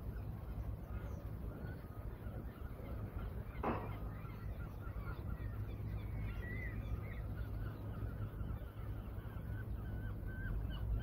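Birds calling over and over with short, high calls, over a steady low rumble; one sharp knock about four seconds in.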